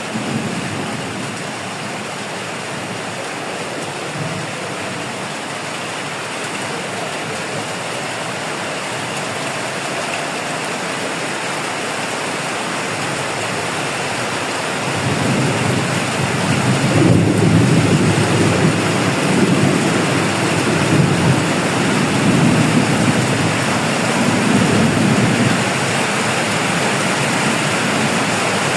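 Heavy rain pouring steadily. About halfway through, a louder low rumble swells and ebbs for roughly ten seconds over the rain.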